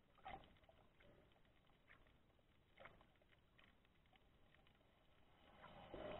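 Near silence: muffled underwater ambience heard through a camera housing, with a few faint clicks and a swell of water noise near the end.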